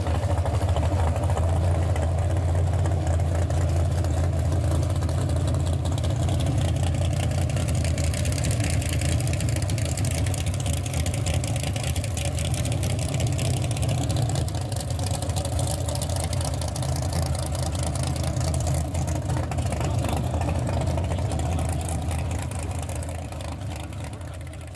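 Nissan Skyline C10 'Hakosuka' drag car, rated at 1200 hp, running at idle with a loud, steady, deep rumble from its exhaust as it creeps along at walking pace. The sound eases a little partway through and fades out at the end.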